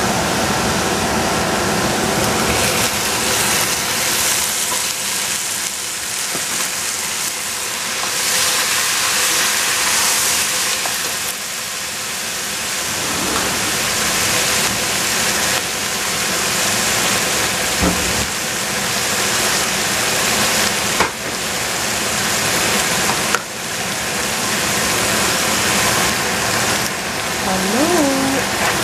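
Vegetables sizzling in a stainless steel pot on the stove, a steady hiss with a few brief clicks along the way.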